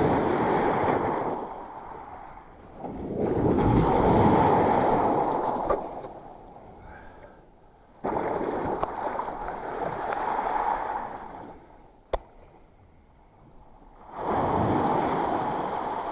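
Small waves washing up a shingle beach and drawing back, in four surges a few seconds apart. A single sharp click comes a little after the middle.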